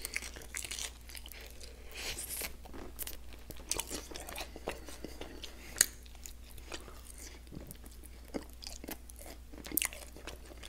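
Close-miked chewing and biting on sauced peanut-butter-and-jam chicken wings: irregular wet mouth clicks and crunches as meat is gnawed off the bone, with one sharp click about six seconds in.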